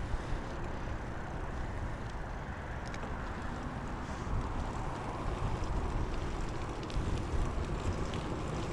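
Steady wind rush and tyre rolling noise from a moving bicycle, heard on a clip-on lapel mic.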